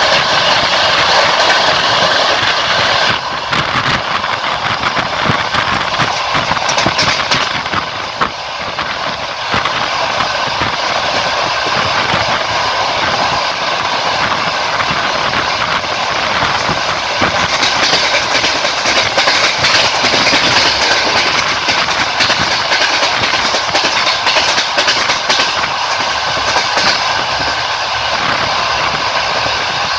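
Passenger train running along the line, its carriage wheels clattering over the rail joints amid a steady rushing rail noise.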